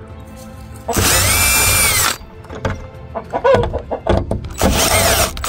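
Cordless drill backing screws out of a door hinge in two runs of about a second each, about a second in and near the end, its motor whine rising and falling with the trigger. Chickens cluck in between the runs.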